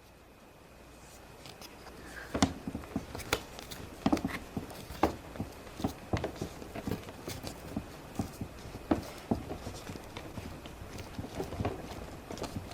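Irregular taps and knocks of plastic Play-Doh molds and tools being handled while dough is pressed into a mold, starting about two seconds in and going on a few times a second.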